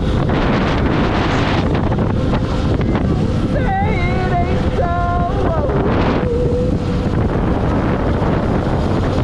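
Heavy wind rush on the microphone of a Lifan KPX 250 single-cylinder motorcycle moving at highway speed, with the engine running beneath it. A short pitched sound that rises and falls cuts through near the middle.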